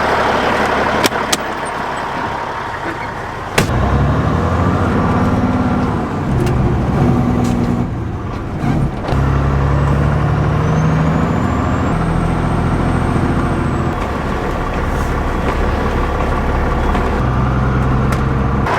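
Heavy diesel truck engine running and working, its speed rising and dropping in steps, with a few sharp clacks.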